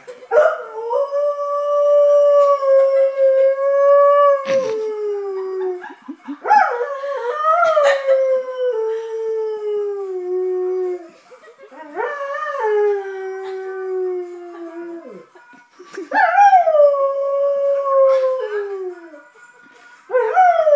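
Bernese mountain dog howling in long, drawn-out cries: four howls, each jumping up at the start and then sliding slowly down in pitch, with a fifth starting near the end.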